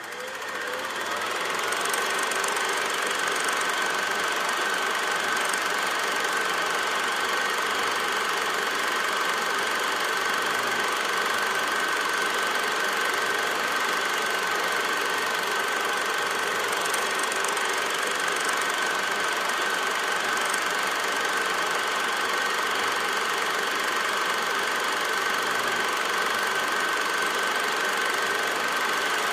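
A steady mechanical running noise: an even clatter and hiss with a constant high whine. It fades in over the first two seconds and then holds unchanged.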